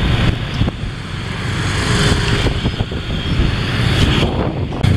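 Road traffic dominated by motorbike engines: a steady low rumble with a haze of engine and tyre noise.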